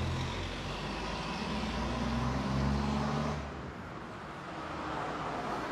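Road traffic: a motor vehicle going past, its engine rising and then dropping away a little over three seconds in, over a steady low rumble.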